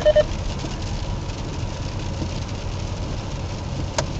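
Cabin noise of an Opel Zafira Tourer cruising steadily at about 80 km/h in sixth gear, its A20DT 2.0-litre turbodiesel turning about 1,400 rpm under light load: a steady low drone of engine and road. One short sharp click near the end.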